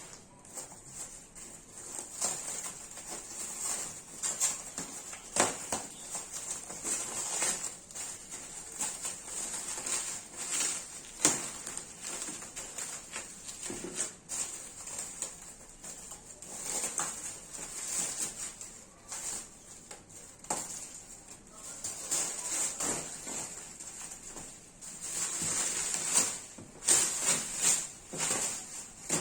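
Packaging being handled and unwrapped: irregular rustling and crinkling with occasional light knocks.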